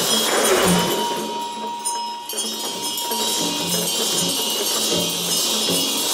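Many large damaru hand drums rattling at once in a rapid, uneven patter, with a small hand bell ringing a steady tone for a second or so near the start.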